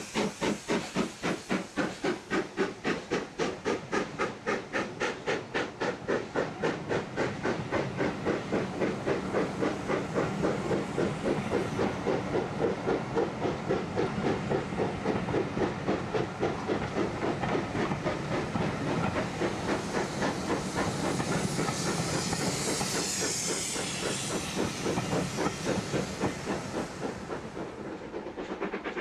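Steam locomotive working a passenger train past: sharp, regular exhaust beats with hissing steam and the rumble of the carriages rolling by. The beats come closer together, then merge into a steady hiss and rumble that fades near the end as the train draws away.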